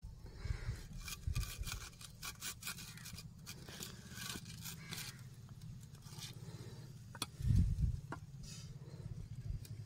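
Steel rebar skewers scraping and clicking against the bricks as the whole chicken is turned over the charcoal, in a run of short scrapes. A loud low rumble comes about three quarters of the way through.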